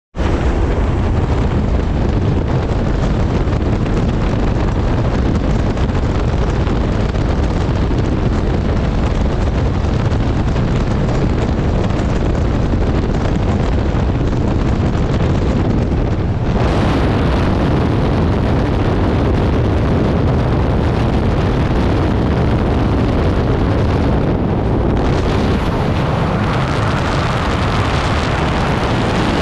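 Loud, steady rush of wind buffeting the camera microphone at an aircraft's open jump door and in skydiving freefall. The noise turns harsher about sixteen seconds in.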